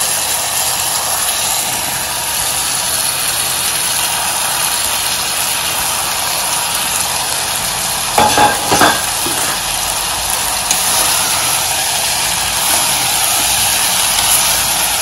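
Onion and tomato frying in oil in an aluminium pressure cooker, a steady sizzle, as cut guar beans and green peas are added on top. A brief metallic clatter comes about eight seconds in, and a ladle starts stirring the vegetables near the end.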